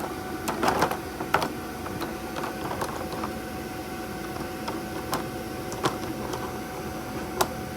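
Hand tools clicking and knocking as they are handled, with a few sharp knocks spread through, over a steady hum.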